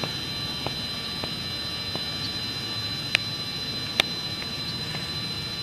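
Giant electric RC airplane's electric motor giving a steady high-pitched whine, with two sharp clicks about three and four seconds in.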